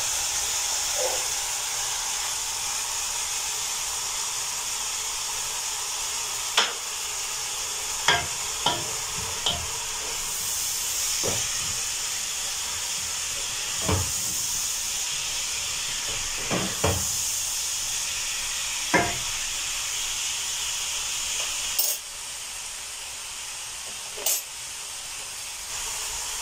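Diced bell peppers, peas and spring onions sizzling steadily as they fry in a pan. A wooden spatula knocks against the pan now and then as they are stirred.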